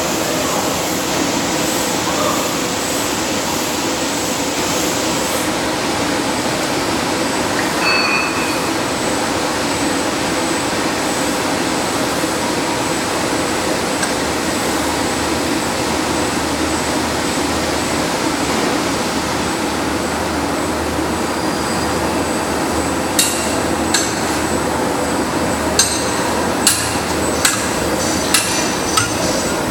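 RX-25 cross shaft mechanical power press running with a steady mechanical hum. In the last several seconds come about eight sharp metallic strikes, roughly one a second, as the press cycles.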